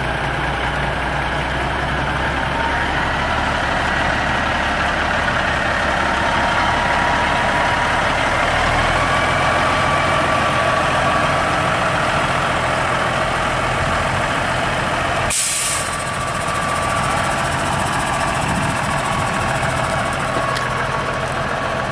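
Semi-truck tractor's diesel engine running as the unhooked truck pulls forward, its engine speed rising gently, with one short burst of air-brake hiss about fifteen seconds in.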